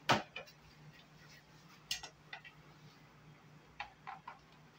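Sharp clicks and knocks of a white tubular metal baby-bed frame and its plastic joint fittings being handled and fitted together during assembly. One loud knock comes right at the start, then a couple of lighter clicks about two seconds in and a quick run of three taps near the end, as a hand screwdriver works at a screw in the frame.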